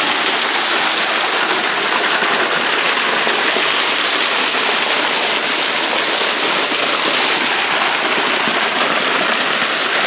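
Small waterfall spilling off a rock overhang and splashing onto the rocks and wet ground below: a steady hiss of falling water.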